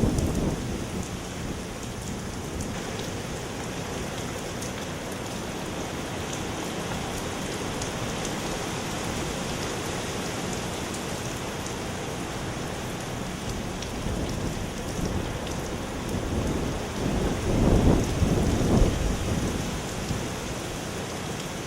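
Heavy rain from a hurricane's feeder band pouring steadily, with loud low rumbles at the very start and again for a couple of seconds about three-quarters of the way through.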